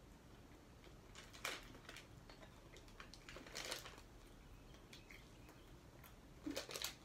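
Near silence: room tone with a few faint brief rustles, about a second and a half in and again near four seconds.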